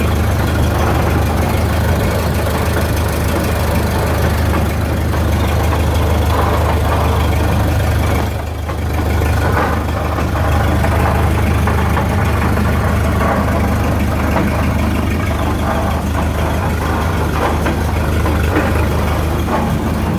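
1929 Model A Ford pickup's four-cylinder engine running in gear with the rear wheels turning free, heard from under the truck, with a steady noise from the running gear. It dips briefly about eight seconds in. The owner traces the noise to the rear end and suspects a damaged spider gear in the differential.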